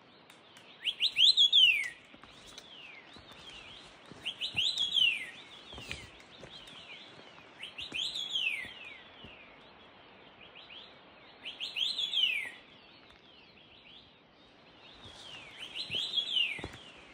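A songbird singing the same short phrase over and over, a quick run of falling whistled notes, five times about three and a half seconds apart.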